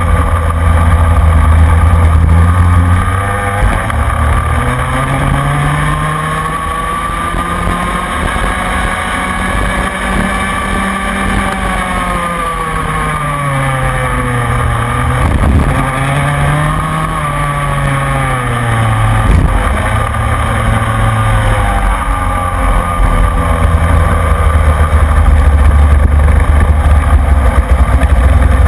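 Rotax Mini Max 125cc two-stroke kart engine heard onboard while racing, its pitch climbing on the straights and falling away into the corners several times over. A loud low rumble sits under it near the start and again in the last few seconds.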